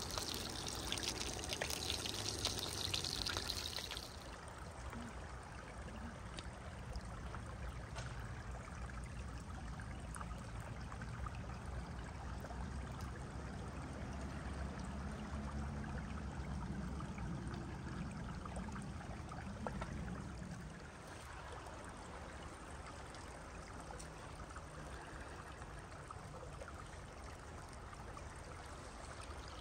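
A stream running over rocks, a steady rushing of water, with a brighter hiss in the first few seconds that falls away about four seconds in.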